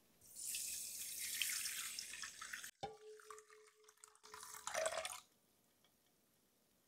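Water poured into a glass bowl onto powdered gelatin to bloom it: one pour of about two and a half seconds, then a shorter second splash about five seconds in.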